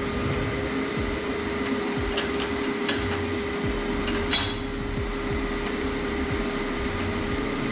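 Steady machine hum and fan noise, with scattered light clicks and one louder knock about four seconds in.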